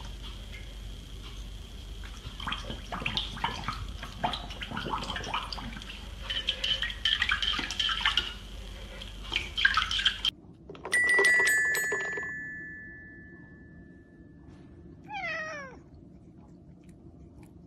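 A puppy splashes and paws at the water in its bowl, with repeated sharp slaps and clicks against the bowl. The sound then cuts to two notes struck on a toy xylophone that ring on and fade. A cat gives a single short meow a few seconds later.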